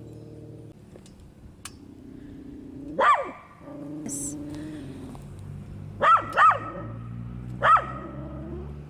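A dog barking four times: once about three seconds in, then two quick barks around six seconds and one more near the end.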